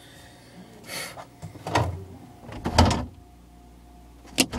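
Items knocking about in a refrigerator as it is rummaged through: a short rustle about a second in, two dull thumps, and a sharp click near the end.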